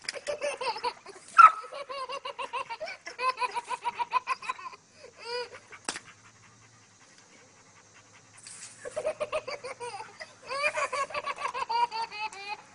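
A toddler laughing hard in long runs of quick, high-pitched pulses. The laughter breaks off for about three seconds midway, with one sharp click, then starts again.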